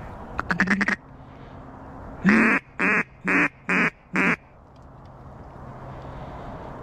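Mallard-type duck quacks: a quick rattling chatter about half a second in, then five loud, evenly spaced quacks in a row.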